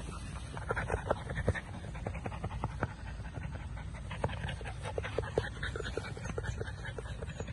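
American bully puppy panting, with scattered light clicks over a low steady rumble.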